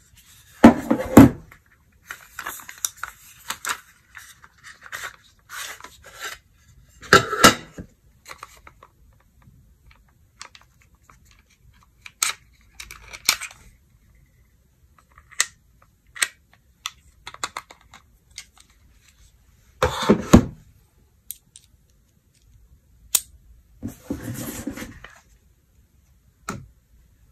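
Handling noises of a teardown: small metal screwdriver bits clicking and rattling as they are picked from a plastic bit case and fitted to a precision driver, and a phone being handled, with scattered sharp clicks and a few louder knocks and rustles.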